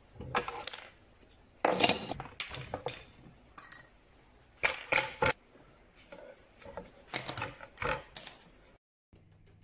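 Steel screw clamps being loosened, lifted off a glued-up joint and set down: a series of irregular metallic clanks and rattles.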